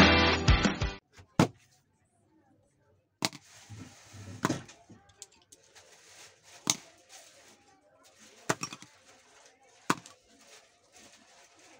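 Upbeat intro music cuts off about a second in. After that come about six sharp clicks, one to two seconds apart, with light rustling between them, as wooden pencils are set down one at a time on a drawing book.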